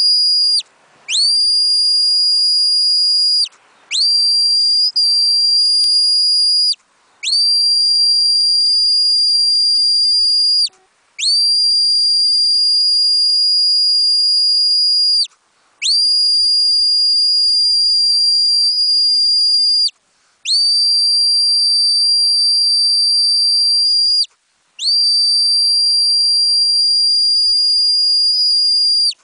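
A high-pitched whistle blown in long, steady blasts of about three to four seconds each, with short breaks between them; each blast drops in pitch as it dies away.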